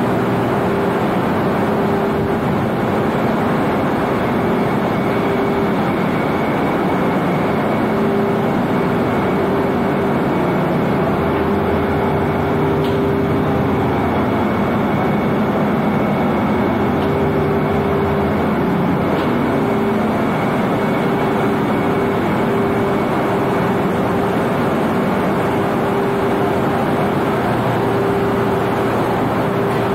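Ship's engine-room machinery running: a loud, steady mechanical din with a constant humming tone through it.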